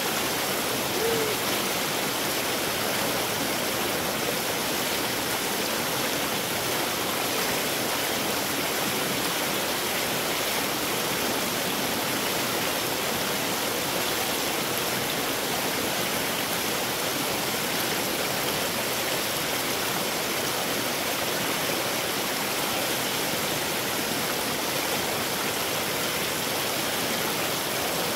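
A stream running steadily, an even rush of water with no change in level.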